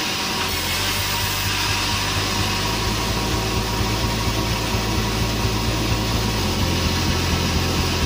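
Sawmill band saw running and cutting through a large squared timber: a steady low machine hum under the rasp of the blade in the wood. The hum shifts in pitch about a second in and again near the end as the load changes.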